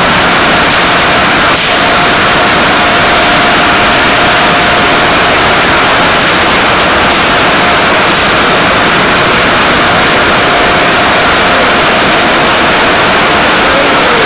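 Car wash air-dryer blowers running at full blast, a loud, steady rush of air with a faint steady whine that comes and goes.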